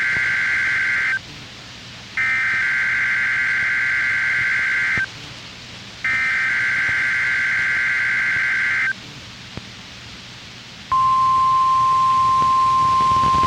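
Emergency Alert System SAME header broadcast over NOAA Weather Radio: three bursts of warbling digital data tones, each about three seconds long with about a second's pause between them. About two seconds after the last burst, the steady 1050 Hz weather radio warning alarm tone starts. Together they announce a practice tornado warning test.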